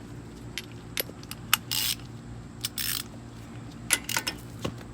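Ratchet socket wrench on a motorcycle's rear axle nut: sharp metal clinks and two short runs of ratchet clicking, about two and three seconds in.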